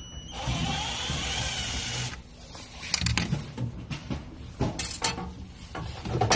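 Electric screwdriver running for about two seconds with a shifting whine as it backs out a mounting screw of the infrared sensor, followed by several clicks and knocks of screws and parts being handled.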